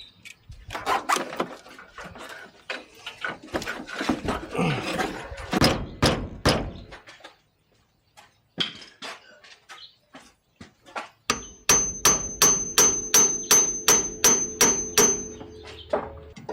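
Metal hand tools clicking and clanking while bolts are worked on the car. Near the end comes a run of about a dozen evenly spaced metal strikes, about three a second, with a ringing tone under them.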